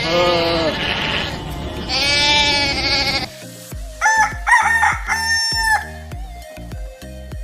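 Two wavering goat bleats, then a rooster crowing in several held segments about four seconds in, over background music with a steady beat.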